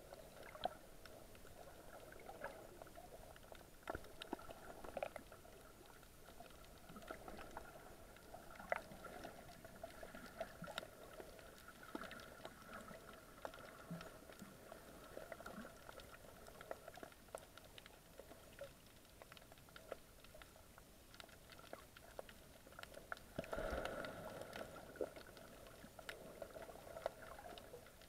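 Faint underwater ambience picked up through an action camera's waterproof housing: a steady low hum with many small scattered clicks and crackles, and a short louder rush late on.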